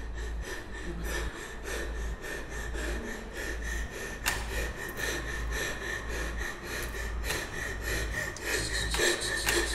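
A woman breathing fast and shakily in fear, with quick sharp breaths and gasps, over a steady faint high whine and low hum.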